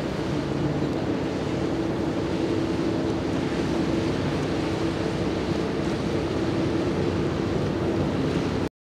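Waterside ambience: wind buffeting the microphone and water washing, with a steady engine drone underneath. It all cuts off suddenly near the end.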